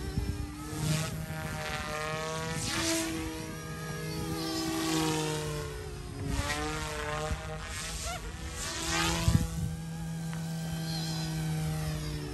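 YXZNRC F280 flybarless RC helicopter in flight: its brushless direct-drive main and tail motors and rotors whining steadily. The pitch sweeps up and down several times as it flies past.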